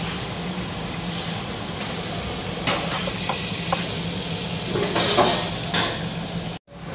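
Kitchen handling sounds: a few light clicks and clinks of utensils or spice containers, then a louder scraping rustle about five seconds in, over a steady low hum. The sound drops out briefly near the end.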